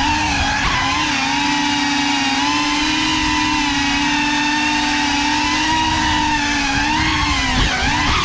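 Geprc Cinelog 35 cinewhoop quadcopter's brushless motors and propellers whining steadily in flight, the pitch dipping and wavering near the end as the throttle changes.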